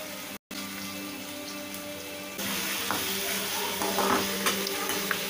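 Chopped tomato and onion with turmeric frying in oil in a steel kadai, the sizzle growing louder about two and a half seconds in. A metal spatula scrapes and clicks against the pan as they are stirred.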